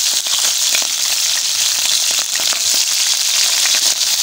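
Pre-cooked goat meat frying in hot oil in a stainless steel pot, a steady sizzle dotted with small crackles, while a wooden spoon stirs it.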